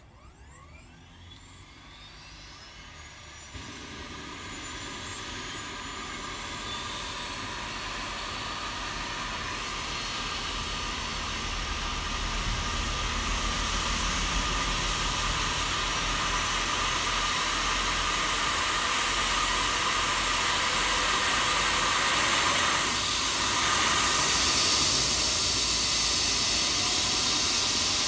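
Helicopter turbine engine starting up: a whine that rises steadily in pitch while growing much louder, over a rushing hiss that builds as the rotors begin to turn.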